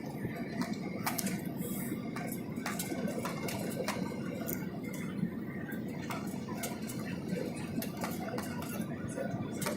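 Steady low rumble of cabin noise inside an Airbus A320 on its landing, with many scattered light clicks and rattles over it.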